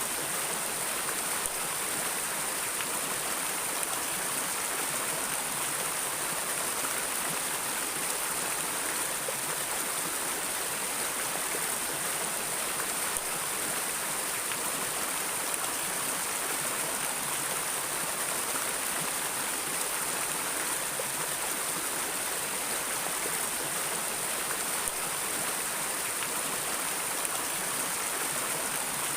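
Stream or river water flowing steadily, an even rushing hiss without changes.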